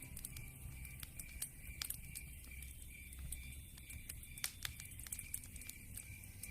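Wood fire crackling in a fireplace: irregular sharp pops and snaps over a low rumble of flame.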